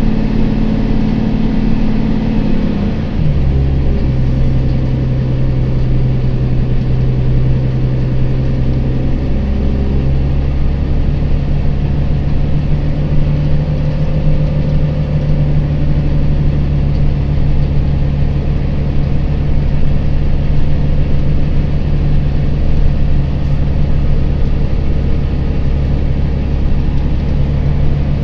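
Volvo B9TL double-decker bus's six-cylinder diesel engine running as the bus drives, heard from inside the upper deck as a steady drone. The engine note drops about three seconds in, then holds steady.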